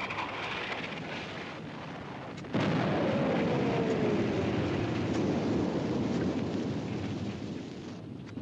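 Steady rumbling background of battle, then about two and a half seconds in a sudden loud artillery shell blast whose rumble slowly dies away, with a tone falling in pitch through it.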